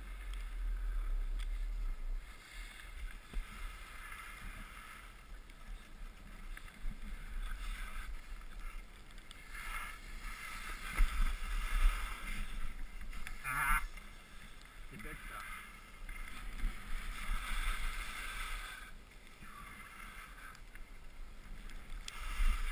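Snow hissing and scraping under the camera wearer's edges while riding down a piste, swelling and fading with each turn, with one sharper scrape a little past halfway. A steady low wind rumble sits on the camera's microphone underneath.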